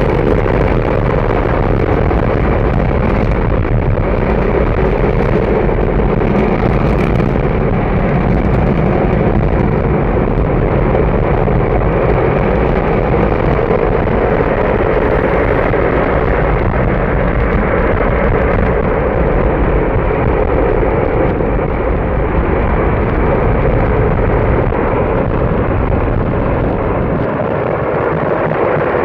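Missile first-stage rocket motor firing in a static test: one continuous loud roar that holds steady and eases slightly near the end.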